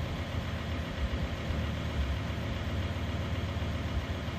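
Ford Ranger pickup's engine idling steadily; the diesel heater's fuel pump is not yet ticking.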